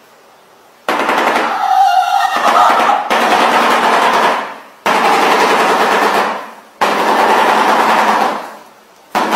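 Shoebill clattering its bill: a rapid rattle in repeated bouts of about two to three seconds, each starting suddenly and fading out, the first about a second in and the last starting near the end.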